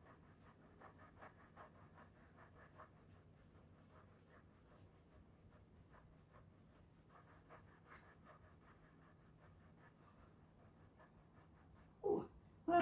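Waist-twisting disc turning back and forth under the feet, a faint rhythmic scratching of about three strokes a second that comes and goes. Two short, louder sounds near the end.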